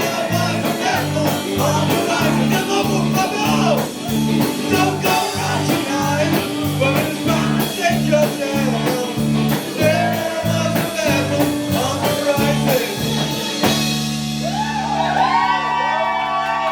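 Upbeat song with singing over a steady, regular beat. About fourteen seconds in the beat stops, leaving a held chord with gliding vocal sounds over it.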